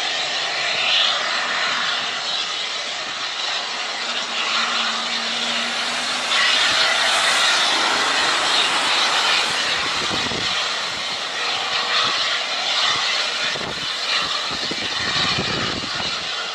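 Fixed-wing airplane noise: a loud, steady rushing roar of engine and air, with brief low surges about ten and fifteen seconds in.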